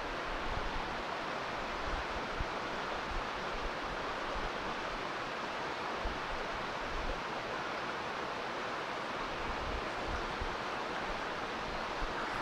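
Steady rushing of a mountain stream, with irregular low rumbles of wind on the microphone.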